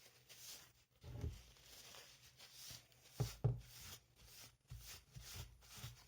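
Short rubbing and scraping strokes, several a second, from cleaning a chainsaw bar by hand, with a couple of dull handling knocks about a second in and past the three-second mark.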